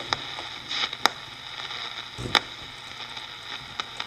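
Matsushita portable shortwave radio's speaker hissing with static between stations while being tuned, broken by several sharp crackles, the loudest about two and a half seconds in; the control is a little scratchy.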